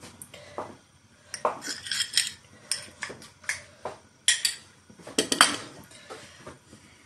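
Kitchen utensils and dishes being handled: a run of sharp clinks and knocks, some ringing briefly, loudest about four and five seconds in.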